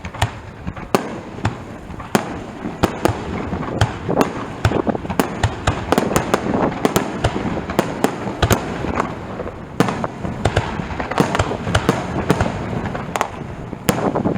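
Aerial fireworks shells bursting in quick succession: dozens of sharp bangs with crackling between them.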